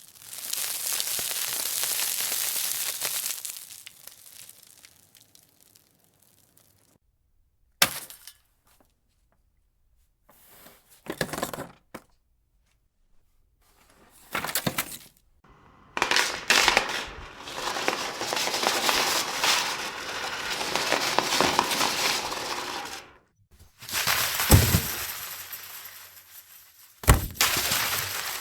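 A series of separate falling-object sound effects, crashes and clattering impacts of things dropped onto a hard floor. A long crash opens, then single sharp hits about eight, eleven and fifteen seconds in, a long rattling clatter, and two heavy hits near the end, with a high ringing after the last ones.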